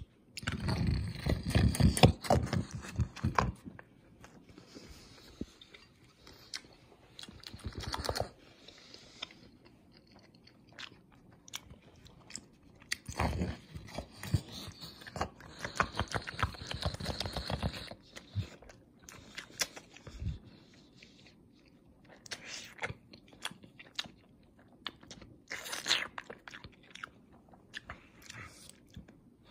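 A person biting and chewing a crusty sub sandwich with bacon and pepperoni close to the microphone: crunchy bites and wet chewing, loudest in the first few seconds, then several more bouts of chewing with quieter pauses between.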